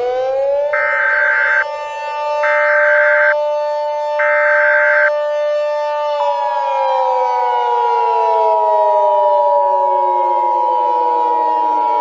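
Emergency Alert System tones over a siren. Three screeching data-header bursts of about a second each sound over a siren held at a steady pitch. About six seconds in, a steady attention tone starts while the siren slowly winds down in pitch.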